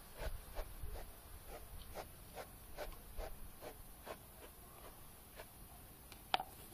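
Bristle brush stroking through a Welsh Corgi's thick coat: a soft, rhythmic scratching of about two and a half strokes a second. A sharper click near the end.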